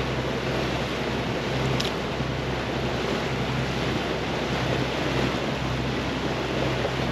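Motorboat running at speed: a steady engine drone under the rush of water along the hull, with wind on the microphone.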